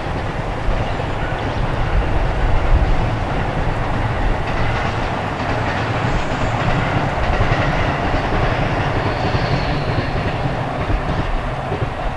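A five-car E531 series electric train running past, its wheels rumbling steadily on the rails.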